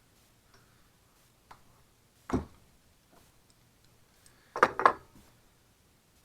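Tire plug insertion tool being worked in a car tire's tread: short scrapes or knocks, one a little past two seconds in and two louder ones close together near five seconds.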